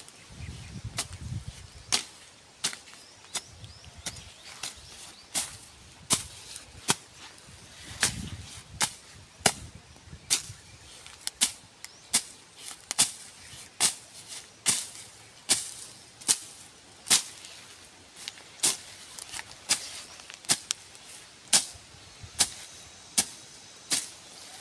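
A hand tool striking wood over and over at a steady pace, a bit more than one sharp strike a second, as in fence-building work.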